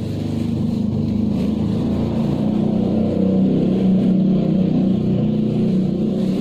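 A steady, loud, low motor drone, rising slightly in level through the middle.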